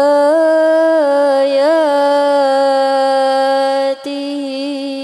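A single voice chanting Quran recitation (tilawah) in a long, held melodic line, drawing out the final syllable of "wa min" with small ornamental turns in pitch. The note breaks off briefly about four seconds in and then carries on.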